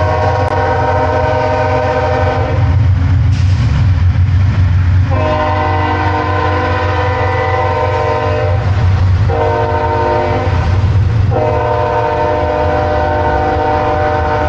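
Freight locomotive's multi-chime air horn sounding in a series of held blasts: long, long, a shorter one, then long again, the pattern of a grade-crossing signal. Under it the train's cars rumble steadily as they roll past.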